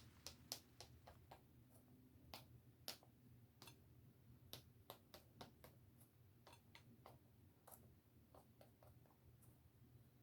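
Faint, irregular sharp clicks and ticks, about two a second, over a low steady hum, from cooking work in the kitchen.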